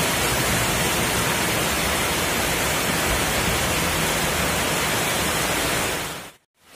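Heavy rain pouring onto a road, a steady hiss. It fades out to a brief silence about six seconds in, then returns.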